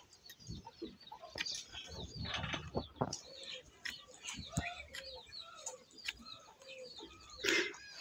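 Birds calling with short chirps and clucks, mixed with scattered short scrapes and clicks of a hoof knife paring a cow's hoof.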